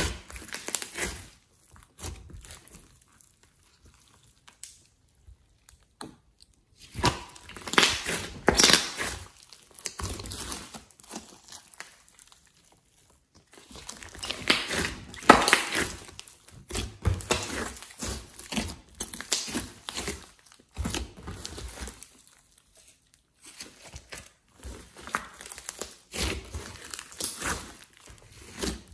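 Large slime mixed with clay and glitter being squeezed and kneaded by hand: wet squishing with crackling, in spells of several seconds separated by short quiet pauses.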